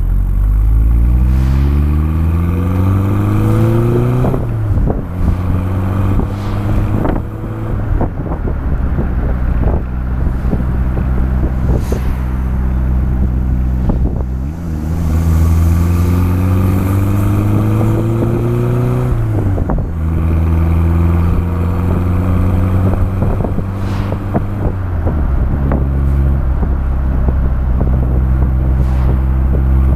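Exhaust of a Honda City Turbo I's turbocharged 1.2-litre four-cylinder while driving: the engine pulls up through the revs in a steady rising climb twice, each time dropping away sharply as the throttle lifts, then runs at a steady cruise. Wind flutters and ticks against the exterior microphone throughout.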